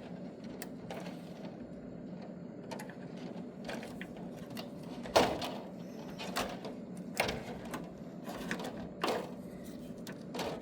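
Scattered clicks and knocks of small parts and wiring being handled inside an open welder case, the loudest knock about five seconds in, over a steady low hum.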